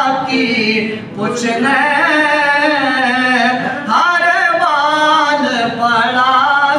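A man singing a Punjabi naat without instruments, drawing out long, wavering notes, with brief breaks about a second in and again about four seconds in.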